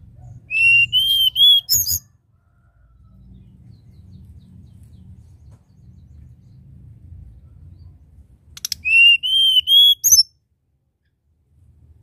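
Hill blue flycatcher singing two short flute-like whistled phrases, one near the start and one about eight seconds later. Each phrase is a quick run of four or five slightly rising notes ending in a sharp high note.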